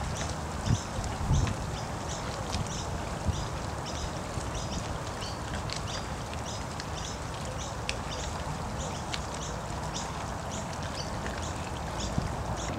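Waterside marina ambience: a steady low rumble with many small, quick, high ticks or chirps, two or three a second, throughout.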